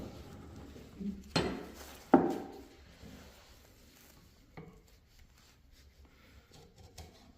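Hand chisel work on a maple honey-dipper blank: two sharp knocks of wood and steel about a second and a half in, the second louder and briefly ringing, then a few faint taps and scrapes.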